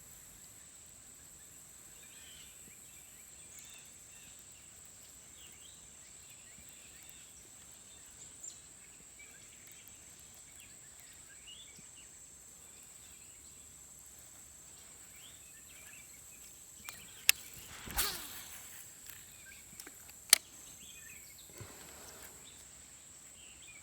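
Steady high-pitched insect chirring, crickets or katydids, with faint scattered bird chirps. A few sharp clicks come near the end.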